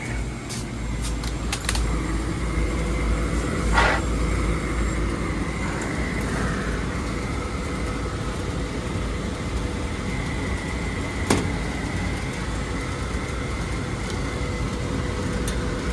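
Running HVAC equipment giving a steady hum with two steady tones, heaviest in its low rumble over the first few seconds, broken by a few sharp clicks, the clearest about four seconds in and after eleven seconds.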